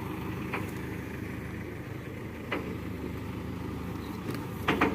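Mobile crane's engine running steadily at a low, even hum, with a few short sharp knocks, the last a quick double near the end.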